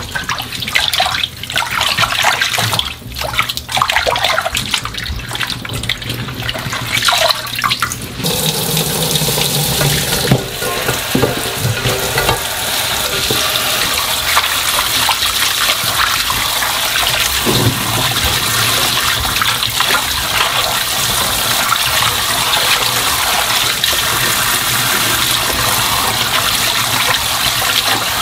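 Hands swishing and splashing young radish greens in a stainless steel bowl of water, then, about eight seconds in, a kitchen tap starts running steadily into the bowl while the greens are rubbed and rinsed under it.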